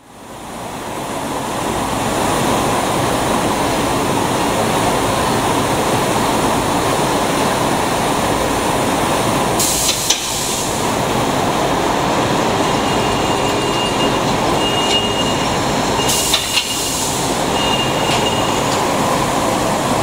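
Industrial plastics-processing machinery running steadily, with two short hissing bursts about ten and sixteen seconds in.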